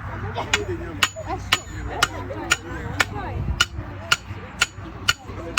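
Sharp knocks with a brief metallic ring, evenly spaced at about two a second, over faint background voices.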